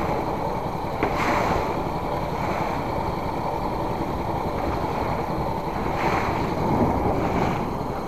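Small wooden fishing boat under way at sea: steady engine noise mixed with wind on the microphone and water rushing along the hull, with a few brief surges.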